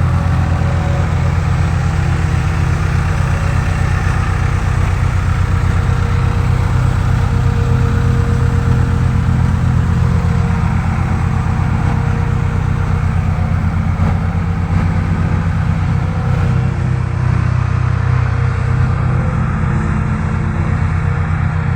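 Road roller's diesel engine running steadily at a constant speed.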